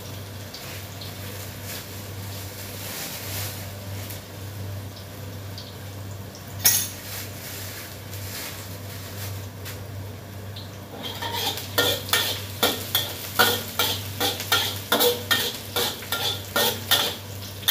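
Garlic and onion frying in oil in a wok, a steady sizzle, with a single knock about a third of the way in. From about two-thirds of the way in, a metal spatula scrapes and clacks against the wok in quick repeated strokes as the food is stir-fried.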